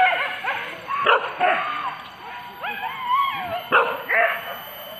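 Boar-hunting dogs yelping in short, high, sliding-pitch bursts, with a drawn-out wavering whine a little past halfway: excited pack baying during a wild boar hunt.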